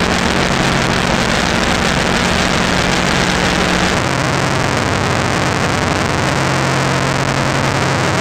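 Fast, heavily distorted bass guitar and drums playing powerviolence-style grindcore: a dense wall of noise over held low bass notes that shift down in pitch about four seconds in.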